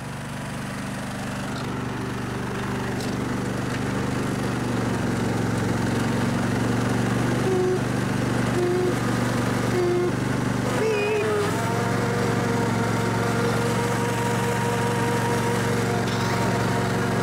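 Snapper riding lawn mower's engine running as the mower is driven on its newly fitted hydrostatic transaxle. It grows louder over the first few seconds, and its note shifts about eleven seconds in.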